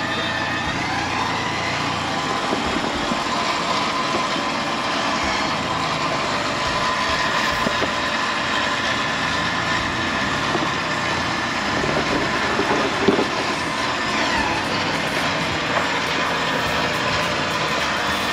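Ford Bronco engine running on an off-road trail, its revs rising and falling. There is a brief bump about thirteen seconds in.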